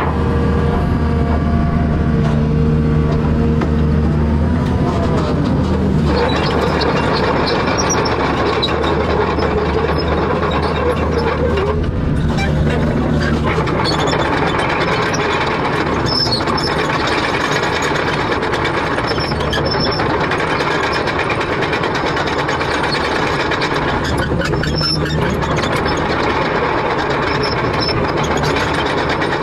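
Heavy machinery engine running steadily. About six seconds in, the even engine note gives way to a denser, rougher working noise with a few brief high squeals.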